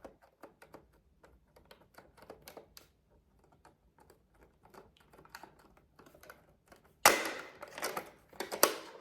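Small plastic buttons on a toy cash register being pressed and tapped, a run of light, irregular clicks; the register has no batteries, so the buttons make no beeps. Near the end comes a louder, denser clatter of plastic.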